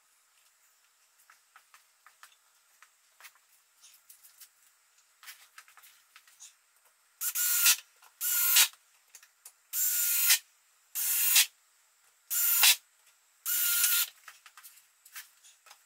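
Cordless drill with a Phillips bit driving screws into the pine roof boards of a beehive, in six short whirring bursts that start about halfway through. Before them there are only faint clicks.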